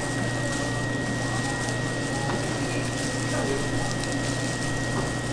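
Steady machine hum with a thin high whine, over faint voices in the background.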